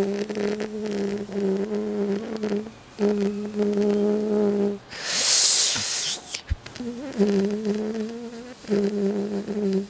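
A man's vocal imitation of a fly buzzing: a steady buzzing hum in several stretches split by short pauses, with a loud hissing rush of breath about halfway through.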